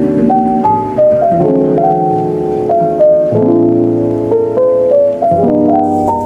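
Background music: a piano-like keyboard melody over sustained chords that change about every two seconds.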